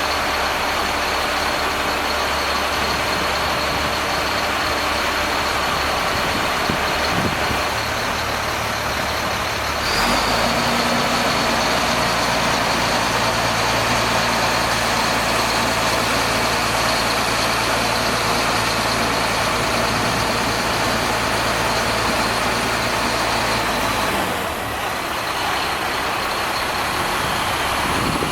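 Heavy diesel truck engine running steadily, with a thin high whine over it. Its low note shifts about ten seconds in and drops back near the end.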